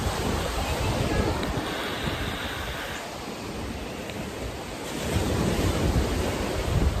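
Wind rumbling unevenly on the microphone over a steady rush of surf, the rumble swelling about five seconds in.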